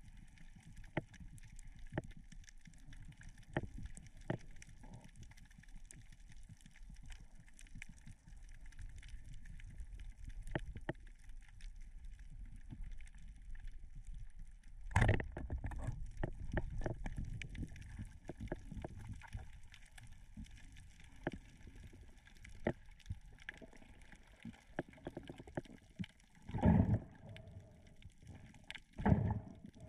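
Muffled water sloshing and gurgling heard through a waterproof camera housing, with many short clicks. A loud burst of rushing water comes about halfway through, and two more come near the end.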